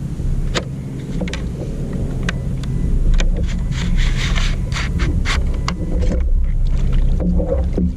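Scattered knocks, clicks and scrapes of gear being handled aboard a fishing kayak, thickest in the middle, over a steady low rumble of wind on the microphone.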